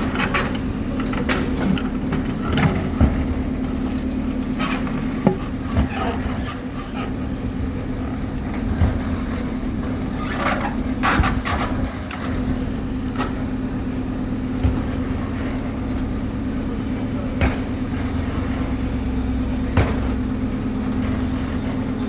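JCB machine's diesel engine running steadily at work, with irregular metallic clanks and knocks scattered through.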